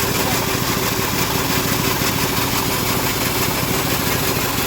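Engine of a homemade bandsaw sawmill running steadily at a constant speed.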